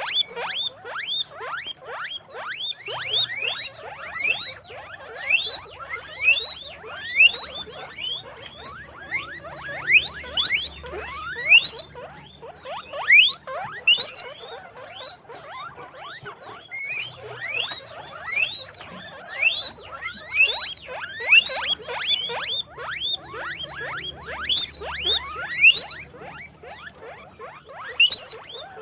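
Guinea pigs wheeking: a continuous run of short, rising whistled squeaks, several a second and overlapping, swelling into louder clusters now and then.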